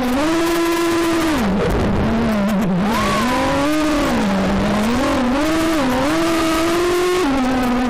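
220-size FPV racing quadcopter with DYS SE2205 2300KV brushless motors and propellers whining in flight, the pitch rising and falling again and again with the throttle, dropping lower about a second and a half in and again near the end.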